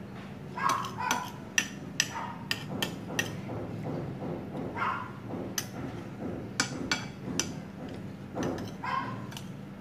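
Metal spoon and fork clinking and scraping against ceramic plates and bowls during eating, about ten sharp clinks spread unevenly. A dog yips a few times in the background, and a steady low hum runs underneath.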